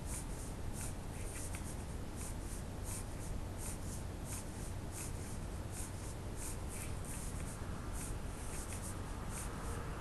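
A fountain-pen nib scratching across paper in many short, quick strokes as lines are hatched, with a steady low hum underneath.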